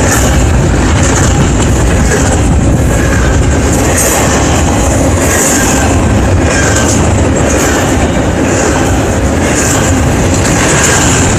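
Double-stack intermodal container cars of a freight train rolling past, a loud, steady rumble of steel wheels on rail with a high hiss that swells and fades every second or two.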